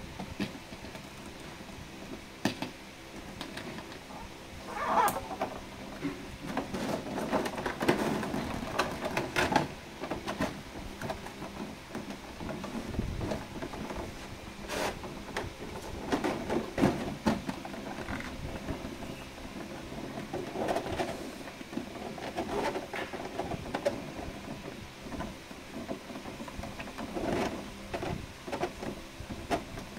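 Clear plastic blister trays, tissue paper and bubble wrap being handled and pulled apart, giving irregular crinkling, rustling and clicking in clusters.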